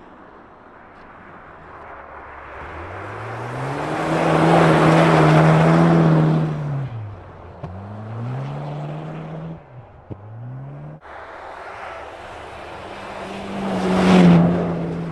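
Car engines revving hard and changing gear while drifting on an ice track, the pitch climbing and dropping several times. It is loudest about five seconds in and again near the end.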